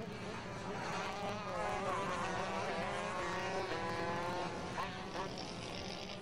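Several 125cc two-stroke racing kart engines buzzing together, their pitches rising and falling as the karts accelerate and brake through the corners.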